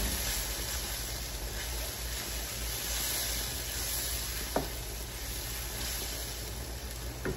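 Spice paste of onion, ginger-garlic, turmeric, chili and coriander-cumin sizzling steadily in oil in a pan with a splash of water as it is stirred and fried down. Two short knocks come about midway and near the end.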